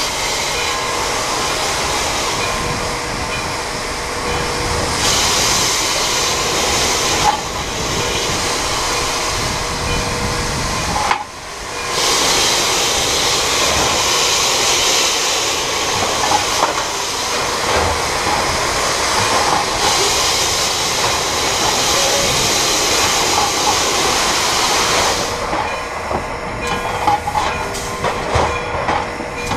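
Frisco 1630, a 2-8-0 steam locomotive, working hard under a heavy train, heard from the tender: running gear and rail noise with a loud steady hiss of steam. The hiss drops out briefly about eleven seconds in and fades near the end, leaving irregular knocks and clanks.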